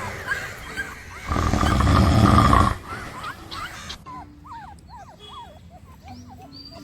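Labrador puppies whimpering and squeaking in short, high, rising and falling cries in the second half. Before that, about a second in, a loud, rough, drawn-out sound lasting about a second and a half.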